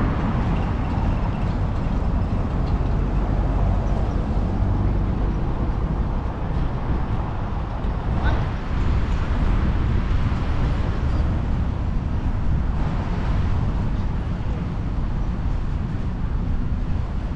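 Road traffic at a roundabout, a steady rumble of cars and trucks passing, with a brief high chirp about halfway through.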